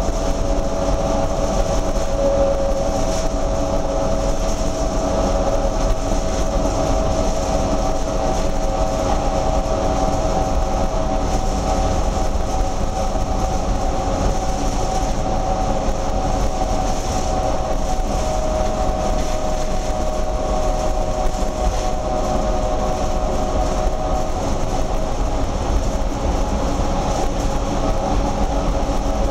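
Cabin noise of a Neoplan AN440LF low-floor transit bus under way: a steady drone and road rumble with a held whine of several tones that barely changes.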